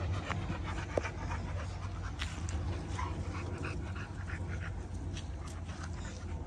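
Exotic micro bully dogs panting as they move about, with a steady low rumble underneath and a single sharp click about a second in.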